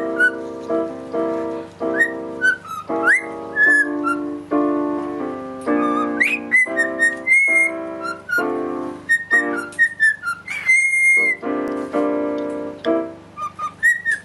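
A cockatiel whistling along to piano chords: high whistled notes and short rising glides over the playing, with one long held whistle about two-thirds of the way through.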